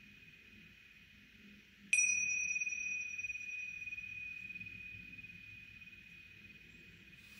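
Pair of tingsha cymbals struck together once about two seconds in, giving a clear high ring that fades slowly. Before the strike, the faint ring of an earlier strike is still dying away.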